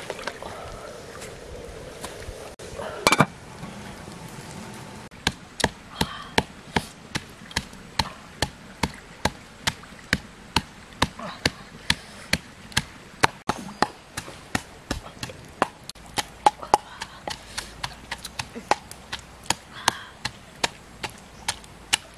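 Pestle pounding in a small mortar, a steady rhythm of sharp strikes about two to three a second that begins about five seconds in. A single loud knock comes before it, about three seconds in.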